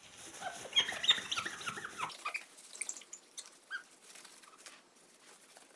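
Paper towel rubbed over a smartphone's glass screen, squeaking: a quick run of short squeaks with faint rubbing noise, thinning out to scattered squeaks after about two seconds.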